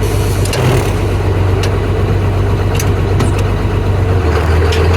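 Tractor diesel engine idling steadily, heard loud from inside the cab, with a few light clicks on top.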